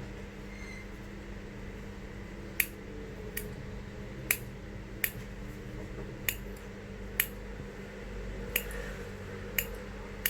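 Sharp, hard clicks, about eight of them at irregular intervals, from small hard parts of a coil-building tool kit being handled. A steady low hum runs underneath.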